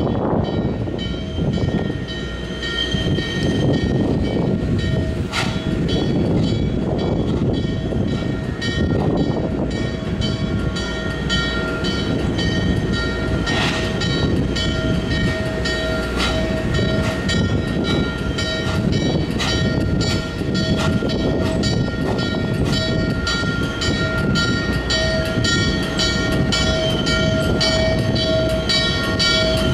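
Norfolk & Western 611 J-class 4-8-4 steam locomotive and its passenger cars rolling slowly on the rails: a steady rumble with a sustained high metallic squeal and rhythmic ticks that come faster toward the end.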